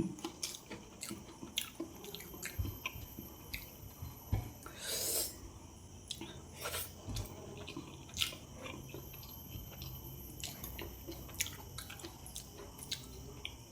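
A person chewing and eating close to the microphone: quiet wet mouth sounds with scattered short clicks and smacks.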